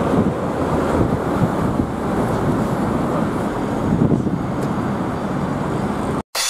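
Steady road and wind noise from a car driving at speed. It cuts off abruptly near the end.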